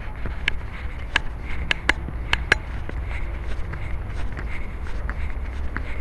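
A cat-collar camera rattling and rubbing as the cat moves: a low rumble with sharp clicks, several loud ones in the first couple of seconds, then fainter ticks about three a second.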